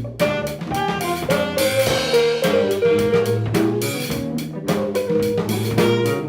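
An instrumental band playing live, a drum kit keeping a steady beat under pitched melody lines and a held low bass note.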